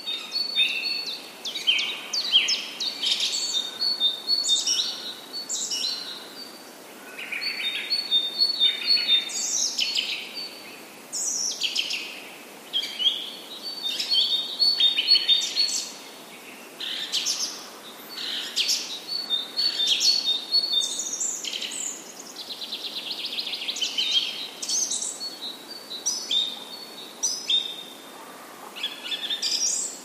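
Songbirds singing, many quick, high chirps and trills overlapping, with a similar trilled phrase coming back every few seconds.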